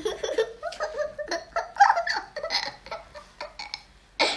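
A young child giggling and babbling in short, broken bursts.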